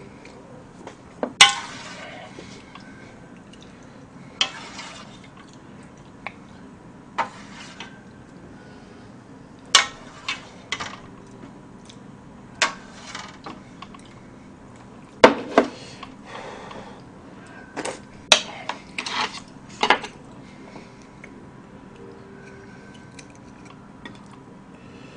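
Spoon and chopsticks knocking and scraping against a metal pot, a small bowl and a ceramic plate while soup is ladled out and kimchi picked up: scattered sharp clinks, the loudest about a second and a half in and about fifteen seconds in.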